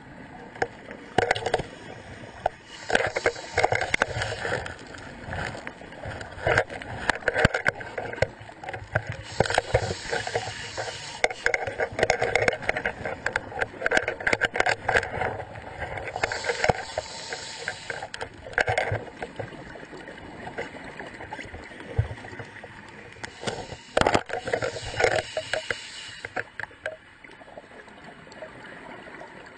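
Water bubbling and gurgling in bursts every few seconds, with many scattered clicks and knocks. It quietens near the end.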